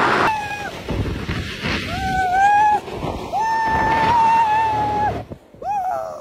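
A man yelling in long, held cries as he rides an inflatable tube down a giant slide, over the steady rushing noise of the ride.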